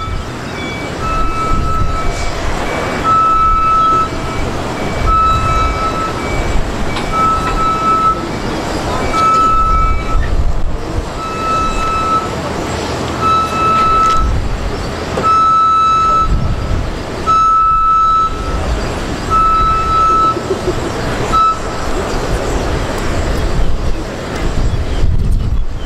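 A vehicle's back-up alarm beeping about once every two seconds over a running engine's rumble, stopping about 21 seconds in. A second, higher-pitched beeper pulses faster alongside it during roughly the first ten seconds.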